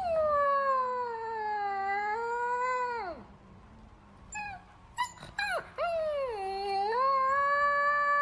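Husky puppy howling: a long howl of about three seconds that falls slightly and wavers before dropping off, a few short yips, then a second long howl that rises and holds steady.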